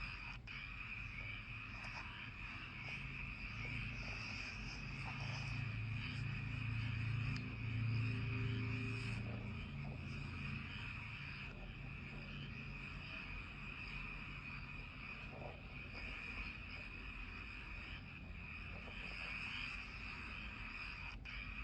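Rural night chorus of insects and frogs, a steady dense high-pitched chirring. A low rumble swells for a few seconds in the middle.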